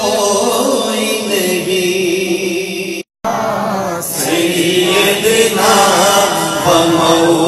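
A man singing a naat, an Urdu devotional poem in praise of the Prophet, unaccompanied into a microphone, with long held, wavering notes. The sound cuts out completely for a moment about three seconds in.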